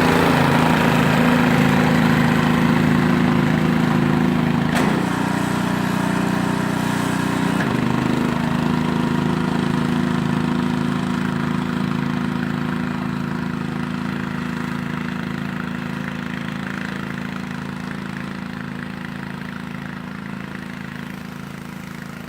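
An engine running steadily at idle, growing gradually fainter, with a slight change in its note about five and eight seconds in.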